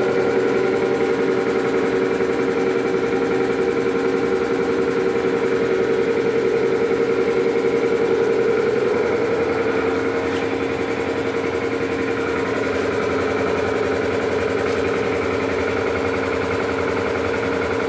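Double-piston air compressor, belt-driven by a 3 HP single-phase Godrej electric motor, running steadily with a fast even pulsing and a steady hum. About halfway through, its pitch dips slightly and it gets a little quieter.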